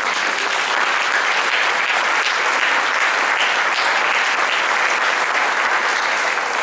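Audience applauding steadily: a dense, even clapping from a large crowd.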